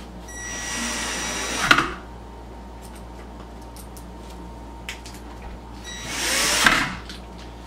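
Ridgid 12-volt cordless drill/driver driving two screws, in two runs of about a second and a half each, the motor whine building and each run ending in a brief loud crack as the screw seats.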